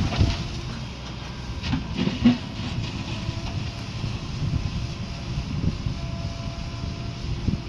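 Heavy diesel machinery engine running with a steady low rumble, with a few metallic knocks and clanks: one at the start and two about two seconds in.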